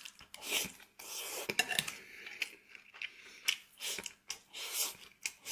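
A person chewing and eating food close to the microphone, a string of short, irregular rasping and smacking sounds.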